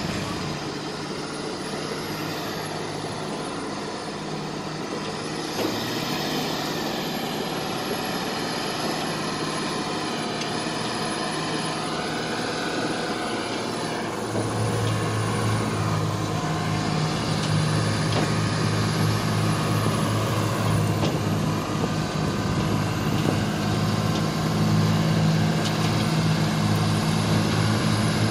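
Diesel engine of a heavy Ashok Leyland 4x4 borewell rig truck running under load on a sandy off-road track. It grows louder and deeper about halfway through as the truck closes in.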